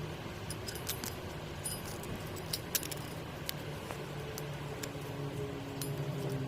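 Cummins X15 (ISX) diesel engine running with a steady hum, overlaid by sharp, irregular metallic clicks and ticks: the strange timing-gear noise that the owner puts down to badly adjusted camshaft gears.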